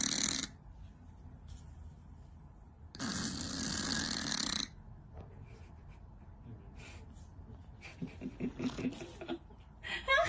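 Scottish Fold cat snoring while asleep on its back with its mouth open: two long snores about three seconds apart. A run of quicker, softer snuffling breaths follows around eight seconds in, and a short rising sound comes near the end as it wakes.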